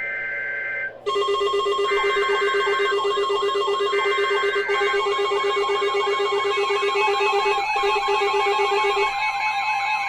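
Emergency alert tones. A weather-radio alert header's screeching two-tone data bursts repeat three times, and from about a second in they are overlapped by loud steady and fast-warbling alarm tones with a pulsing low tone. This marks the start of a new warning activation.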